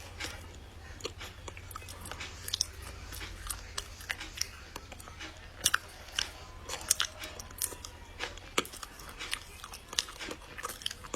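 Close-up sounds of a chunk of chocolate being bitten and chewed: irregular crunching, cracking snaps scattered throughout, over a steady low hum.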